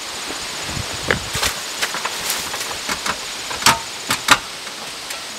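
Scattered footsteps and knocks of a person climbing a metal ladder, with the sharpest clanks about two thirds of the way through, over a steady outdoor hiss.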